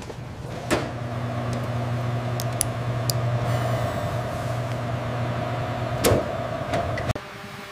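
Steady hum of a laboratory analytical instrument running, with a fainter high whine above it and a few sharp clicks. The hum cuts off suddenly about seven seconds in.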